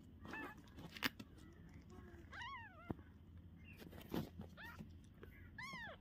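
Young kitten mewing: four high, thin mews that rise and fall in pitch, the longest about two and a half seconds in, with a couple of soft knocks between them.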